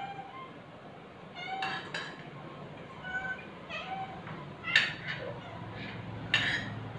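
Spoon and fork clinking against ceramic plates during a meal, with two sharper clinks near the end. Several short high-pitched calls come in between.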